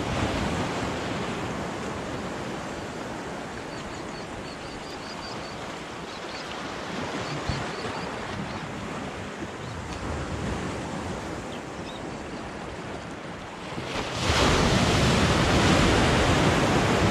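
Sea surf washing against a rock jetty in a steady rush. About fourteen seconds in, a wave breaks over the rocks and the rush grows suddenly louder.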